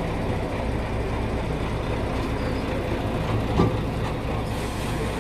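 Heavy articulated lorry's diesel engine running with a steady low hum, with a single clank about three and a half seconds in.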